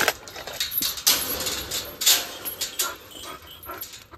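Goats crowding in with scuffling steps on dirt and stones, mixed with footsteps, and a few faint short high calls about three seconds in.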